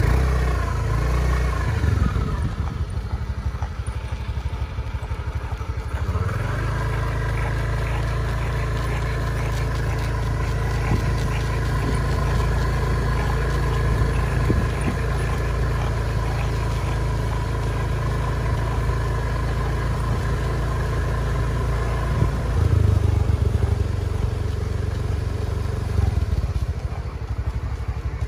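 An engine running steadily at low speed, a little louder for a couple of seconds near the end.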